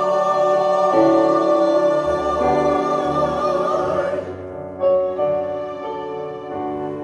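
A hymn sung by a group of voices with piano accompaniment. The singers hold a final chord that ends about four seconds in, and the piano carries on softly with sustained notes.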